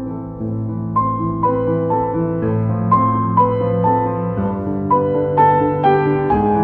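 Instrumental piano music: a slow melody of single notes struck about twice a second over held low notes, with no singing.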